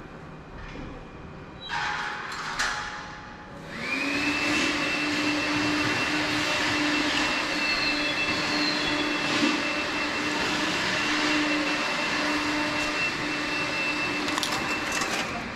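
A motor-driven machine spins up with a rising whine about four seconds in, runs steadily with a hum and a high whine over a rushing hiss for about eleven seconds, then stops abruptly.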